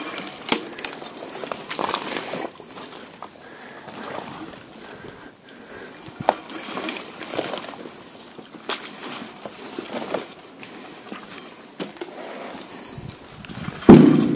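Bicycle tyres and boots squelching and splashing through boggy mud, with scattered clicks and rattles and a sharp thump near the end.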